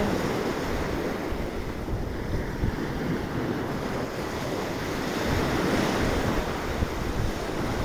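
Sea waves washing on the shore under strong wind, with the wind buffeting the microphone in a steady rumbling hiss.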